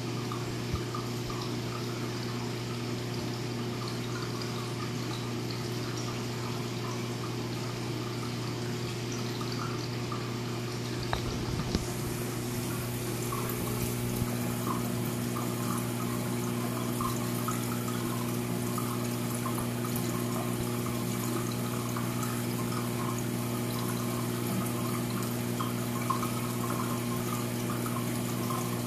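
Steady trickling and splashing of water circulating through a saltwater reef aquarium, over a constant low hum from its pumps. The water sound gets a little louder and brighter about twelve seconds in.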